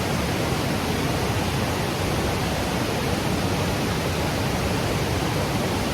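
Steady rushing roar of a nearby waterfall, an even wash of noise with no breaks.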